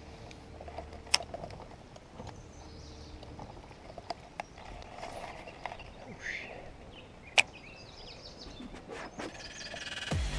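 Quiet outdoor ambience with scattered sharp clicks and knocks, the loudest about seven seconds in.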